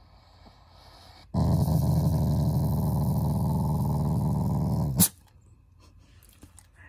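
Shiba Inu growling long and loud in play while his nose is rubbed, an affectionate growl rather than an angry one. It starts suddenly about a second in, holds for nearly four seconds and cuts off with a sharp click.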